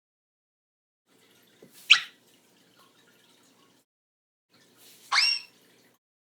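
Two short cartoon sound effects about three seconds apart, each a quick upward-sweeping, whistle-like chirp, like a water drop; the second is longer and fuller, with several overtones.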